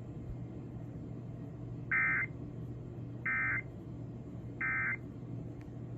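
Emergency Alert System end-of-message data burst: three short identical bursts of high-pitched digital tones, about a second and a half apart, over a steady low hum, marking the end of the alert.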